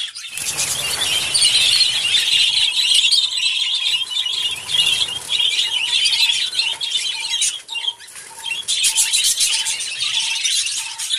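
A large flock of budgerigars chattering and squawking all at once in a dense, shrill din. Through the second half a lower short note repeats about twice a second underneath.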